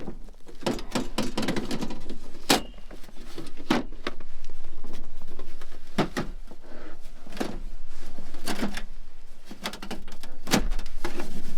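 Camp cooking gear being handled and stowed away, with a string of sharp knocks, clunks and rattles.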